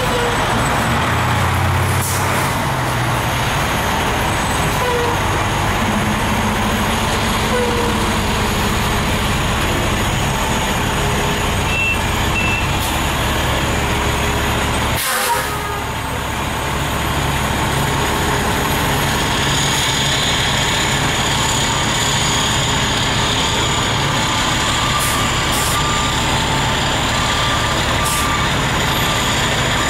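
Fire engines' heavy diesel engines running steadily, with the noise of the big trucks on the move and a hiss of air brakes.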